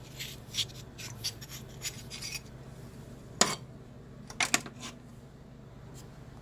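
Sharpening stones being handled and set down: light scrapes and small clicks, then a sharp clack about three and a half seconds in and a quick cluster of clicks a second later.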